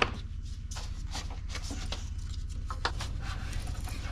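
Light metallic clicks and knocks as the loosened hydraulic belt tensioner and its bolt are handled and lifted out of the engine bay, over a steady low hum.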